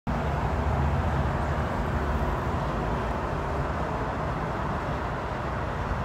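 Wind blowing across a phone's microphone: a steady rushing noise with a heavy, buffeting low rumble, strongest in the first couple of seconds.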